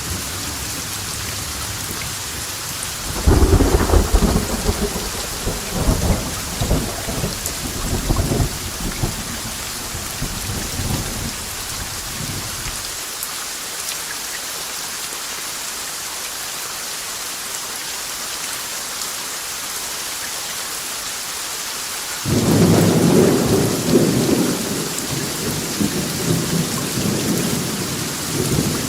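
Steady heavy rain with two peals of thunder: a rolling rumble that starts abruptly about three seconds in and fades away over about ten seconds, and a second that breaks in suddenly past the two-thirds mark and is still rolling at the end.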